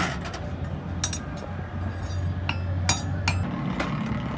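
Hammer blows on metal at a blacksmith's anvil while iron is forged: about five sharp, ringing metallic strikes at uneven intervals. Under them runs a low steady hum that cuts off about three and a half seconds in.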